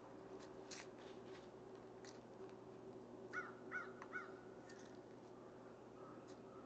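Bird calling three times in quick succession about halfway through, short arching calls about 0.4 s apart, over a faint low steady hum.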